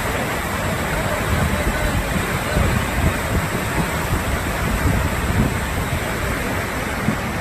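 Steady rushing of a flooded river in spate, with irregular wind gusts buffeting the microphone.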